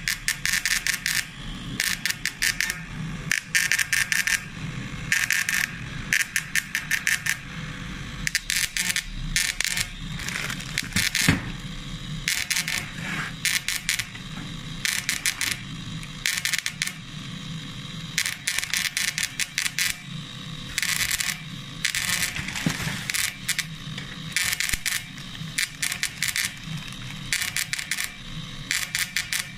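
SZ 08 cold welder torch (electro-spark deposition) sparking its electrode onto gray cast iron. It crackles and buzzes in many short, irregular bursts of a fraction of a second to about a second, over a steady low hum.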